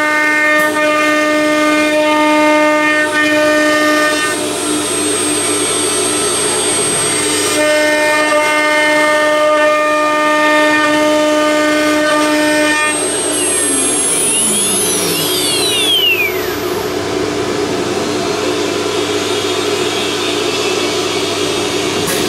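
Blue Elephant ELE2030-4 ATC CNC router's spindle whining steadily as its bit cuts a wooden board. About thirteen seconds in, the whine falls away in steeply dropping sweeps, as a spindle does when it spins down, leaving a steady rushing machine noise.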